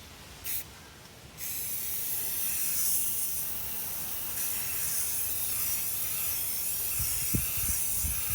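Aerosol spray paint can spraying: a short hiss, then a steady hiss from about a second and a half in, with a few low knocks near the end.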